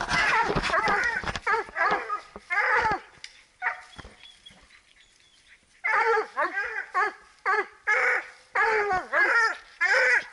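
Bluetick coonhounds barking treed at a raccoon up a tree: repeated loud barks, a lull of a couple of seconds in the middle, then barking again in quick succession.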